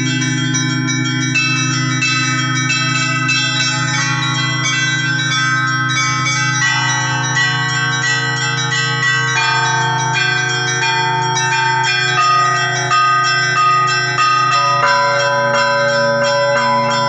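Orthodox church bells ringing in a full peal: quick, busy strikes on the smaller bells over the steady hum of a large bell.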